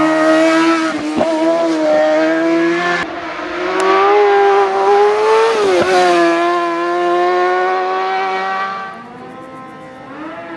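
Racing sport motorcycle's engine held at high revs, with brief dips in pitch as it shifts gear about a second in, at three seconds and near six seconds. Near the end it turns quieter as the bike moves off, the engine note falling and then rising again.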